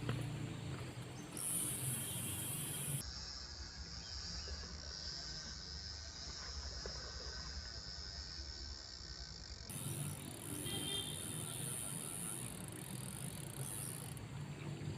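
Fishing reel being wound in with a rapid, steady ticking, reeling in a hooked fish.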